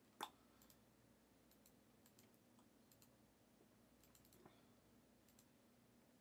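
Near-silent room with faint computer mouse clicks in short runs, and one sharper click just after the start.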